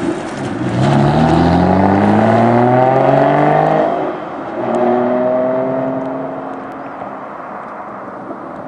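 Aston Martin DBS 6.0-litre V12 accelerating hard, its pitch climbing, then an upshift about four seconds in and a second climb. The engine holds a steady note and fades as the car pulls away.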